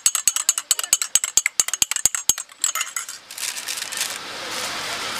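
Metal teaspoon clinking rapidly against a small glass tea cup while stirring tea, about six clinks a second, stopping about two and a half seconds in. A steady hiss follows.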